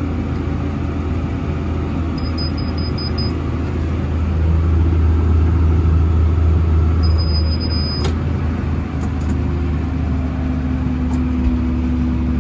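Tractor engine running steadily while pulling a round baler through straw, getting louder for a few seconds midway. High electronic beeps sound over it: five short ones about two seconds in, then a longer one near the middle.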